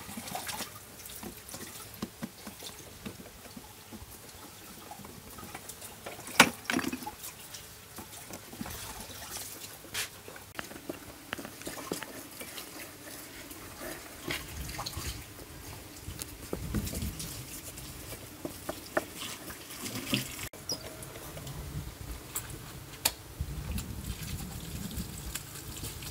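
Water splashing and trickling, with scattered clicks and knocks of handling and one sharp knock about six seconds in.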